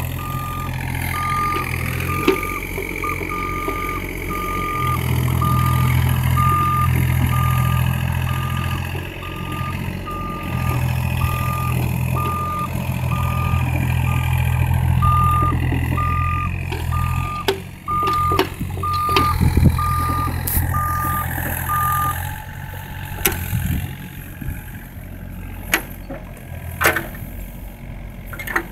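Komatsu PC27MR mini excavator's diesel engine running under load as it tracks across snow, its travel alarm beeping about once a second until the beeping stops about 22 seconds in. A few sharp knocks follow near the end.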